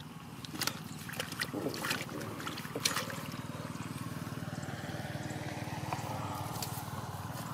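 Hands splashing and groping in shallow muddy water, with a few sharp splashes and trickles in the first three seconds, then a steady low rumble underneath.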